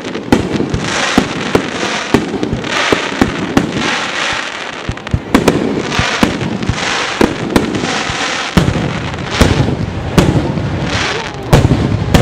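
Aerial firework shells bursting in a rapid barrage: sharp bangs come about twice a second, with the hiss and crackle of burning stars between them. A deeper rumble joins about two thirds of the way through.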